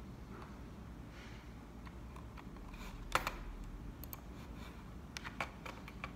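Scattered clicks of computer keys: a single click about three seconds in, a couple more a second later, then a quick run of several taps near the end, over faint room noise.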